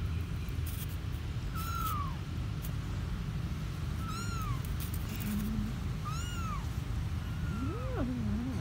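Kittens mewing: four short, high-pitched mews, each rising then falling, spaced a second or two apart, followed near the end by a lower, wavering call, over a steady low background rumble.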